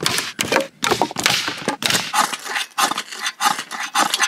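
Dry branches cracking as they are stamped on and broken. From about two seconds in, a ferro rod fire starter is scraped in quick repeated raspy strokes, about three a second, throwing sparks into kindling to light a campfire.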